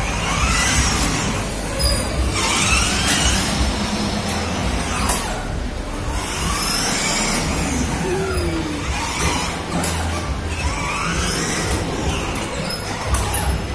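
Battery-powered children's ride-on toy car driving: a low steady hum, with electronic tones sweeping up and down every few seconds.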